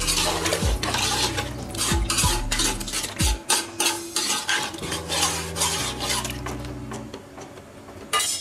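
Metal ladle stirring a watery tomato-and-mushroom pulao base in an aluminium pot, with repeated irregular scrapes and knocks of the ladle against the pot.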